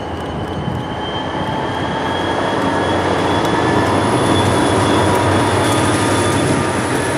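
EMD diesel freight locomotives passing close, followed by autorack cars rolling by, with a dense rumble of engines and wheels on rail and a thin, steady high squeal from the wheels. The sound builds over the first few seconds as the train comes alongside.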